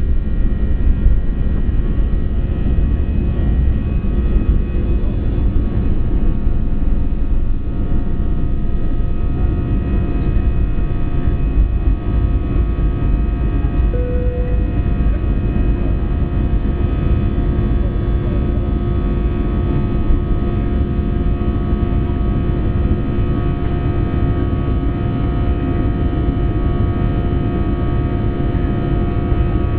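Airbus A320 jet engines and airflow heard from inside the passenger cabin: a steady, loud rumble with faint steady tones over it.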